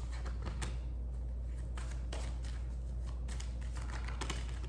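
A deck of tarot cards shuffled by hand, with a few short card flicks and slaps as cards are drawn and laid on the table, over a steady low hum.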